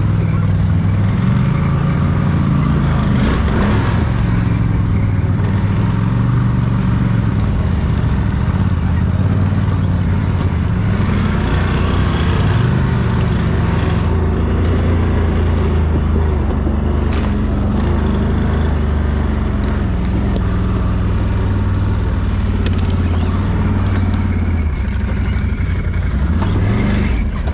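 Can-Am quad (ATV) engine running continuously as the rider works the throttle, the revs rising and falling, with a quick rise in revs near the end.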